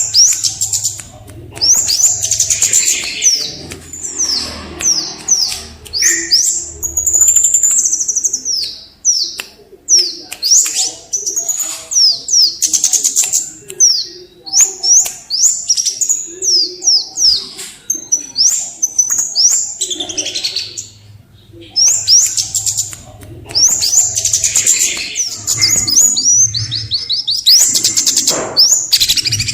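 A songbird singing a long, fast, almost unbroken song of high chirps and quick sweeping whistles, with brief pauses twice.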